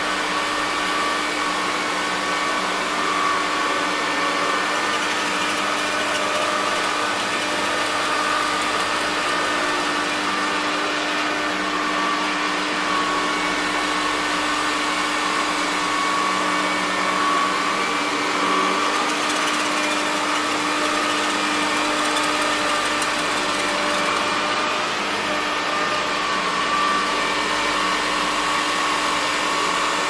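Electrolux Diamond Jubilee (model 1521) canister vacuum running steadily, a rush of air with a steady hum and whine, as its power nozzle is pushed back and forth over carpet.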